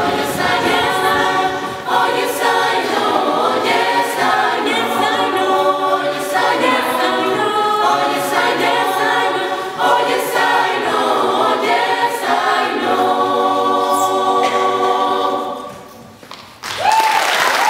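Mixed youth choir singing a cappella in full chords, ending the piece about a second before the end; applause then breaks out.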